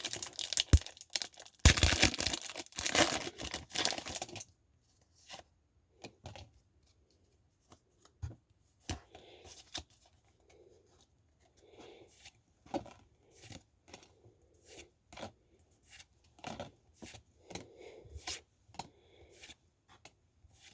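Foil wrapper of a Pokémon TCG booster pack torn open for the first four seconds or so. Then the cards are handled one by one, with short sharp clicks about once a second and faint rustling between them.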